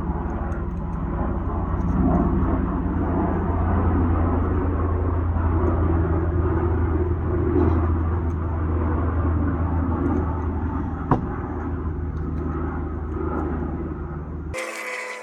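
Steady low mechanical rumble with a hum; a single sharp click about eleven seconds in. The rumble cuts off abruptly near the end.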